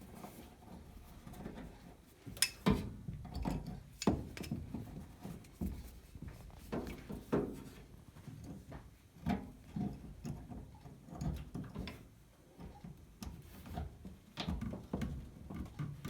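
Scattered clicks, knocks and handling rattles of pliers working spring hose clamps back onto the hoses of a washing machine's water inlet valve.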